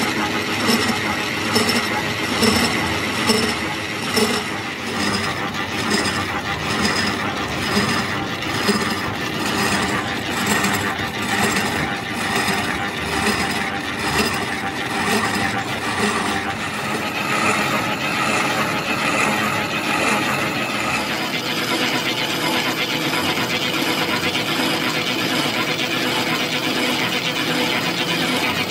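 Large manual lathe running, turning a big spoked gear blank while a carbide-tipped boring bar cuts its bore: steady mechanical clatter. For the first half a regular tick comes a little more than once a second, then the sound evens out into a steadier running noise with a faint whine.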